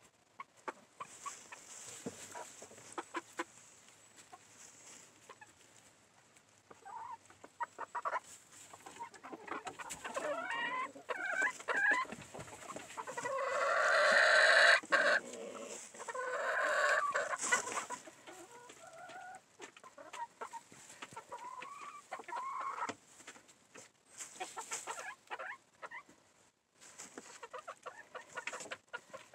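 Chickens clucking, the calls building to a loud run of clucks in the middle and then easing off. Throughout there is the scratchy rustle of dry nesting material as a hen shifts and works the bedding in a wooden nest box.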